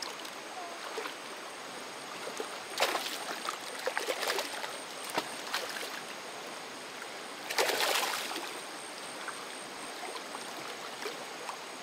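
Water running steadily, with several splashes, the loudest about eight seconds in.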